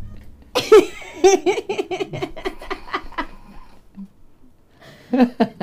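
A burst of hearty laughter, rapid pitched pulses that die away after about three seconds; a short bit of voice comes near the end.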